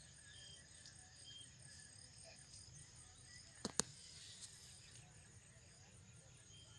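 Faint, steady high-pitched insect chirring in the background, with two sharp clicks a little past halfway through.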